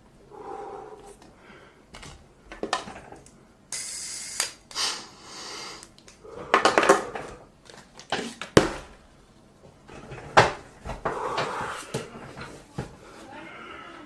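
Objects being handled on a desktop: a scattered series of sharp knocks and taps, with a brief hissing noise about four seconds in.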